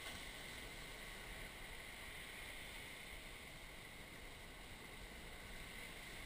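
Faint, steady hiss of outdoor background noise with no distinct events.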